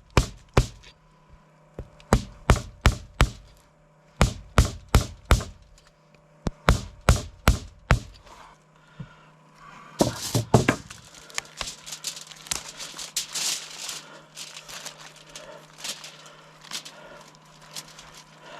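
Chopping blows splitting a whole hog down its backbone, struck in quick runs of about five hard hits, a run every couple of seconds. From about ten seconds in, the blows give way to a rougher scraping and crackling as the split carcass is worked.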